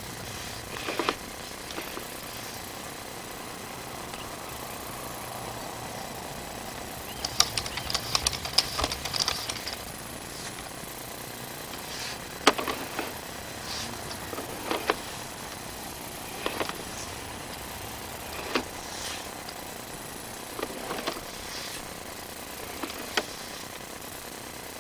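Handling of a sewer inspection camera's push cable: scattered sharp clicks and knocks over a steady low background hum, with a burst of rapid rattling clicks about seven to nine seconds in.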